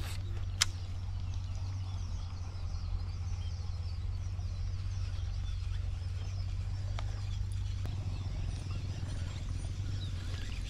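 Daiwa Steez A TW baitcasting reel being wound steadily to retrieve a lure, its gears giving a low, even whirr, with one sharp click about half a second in.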